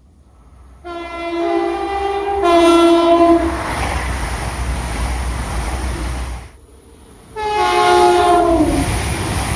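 British train horn sounding a long blast that changes note partway through, followed by the rush of the train running past. After an abrupt break, another train horn blast slides down in pitch, with the train rumbling past again.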